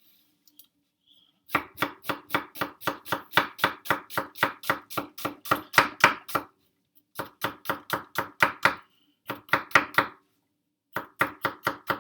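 Kitchen knife chopping onion on a cutting board, in quick runs of strokes at about four a second with short pauses between the runs.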